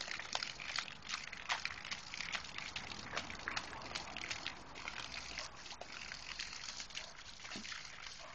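A stream of water from a garden hose splashing onto grass, with irregular splashes and slaps as a small dog bites at the jet.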